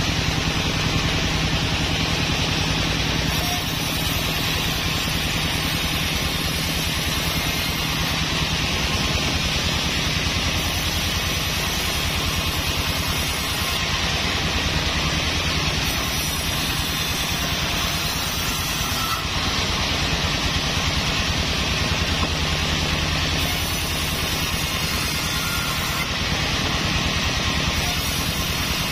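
Large band sawmill running steadily, its blade ripping lengthwise through a sonokeling (Indonesian rosewood) log to saw off a slab.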